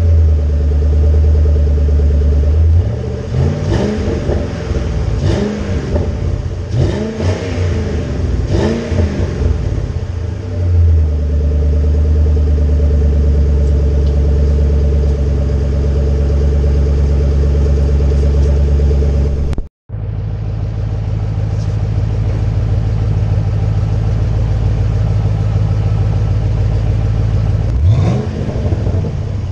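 2005 Ford Mustang GT's 4.6-litre V8 running through Legato axle-back mufflers with stock headers and catted mid-pipe: it idles, then is revved in several quick blips, each rising and falling, from a few seconds in until about ten seconds in, then settles back to a steady idle. After a brief gap about two-thirds of the way through it idles again, warmed up, and the revving starts again near the end.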